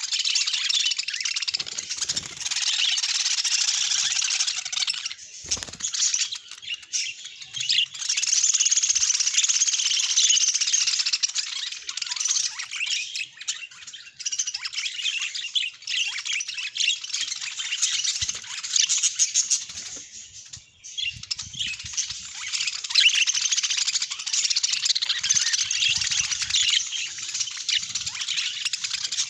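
A flock of small birds chirping and chattering all at once in a dense, unbroken chorus. It dips briefly about twenty-one seconds in.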